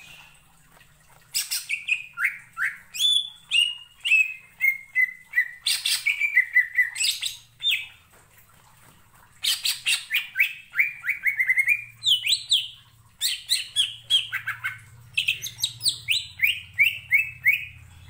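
Cucak ijo (green leafbird) singing in its choppy 'ngentrok' style: four long runs of rapid chirped notes, each run stepping down in pitch, with short pauses between them. A faint low hum runs underneath.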